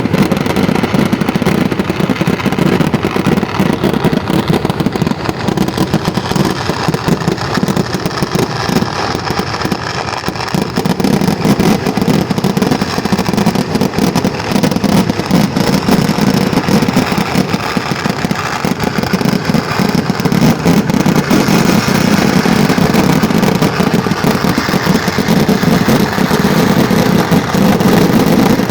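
Fireworks crackling continuously in a dense, rapid stream, with no single bang standing out.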